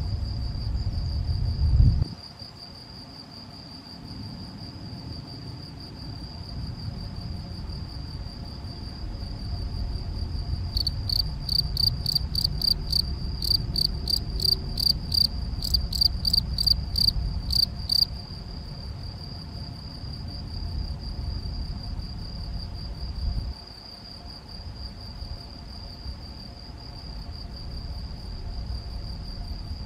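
Male field cricket (Gryllus campestris) calling: a steady high chirping, with a louder, sharper run of chirps, about three a second, from about eleven to eighteen seconds in. A low rumble runs underneath, loudest in the first two seconds.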